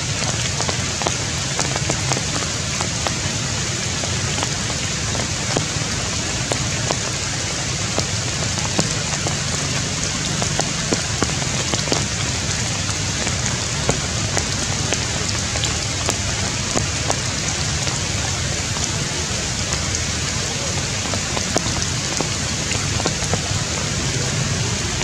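Steady rain falling, with many separate drops ticking.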